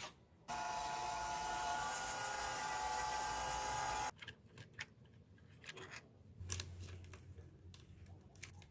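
Small electric gear motor of a homemade RC truck whining steadily, starting about half a second in and cutting off abruptly about four seconds in. Faint scattered clicks and ticks follow.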